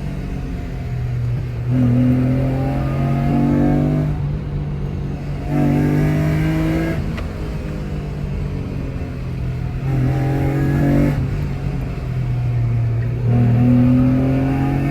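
Mitsubishi FTO GPvR's 6A12 MIVEC V6 with a loud exhaust, accelerating in four pulls. Each time, the engine note rises in pitch for one to two seconds, then cuts off and drops back to a steady low drone.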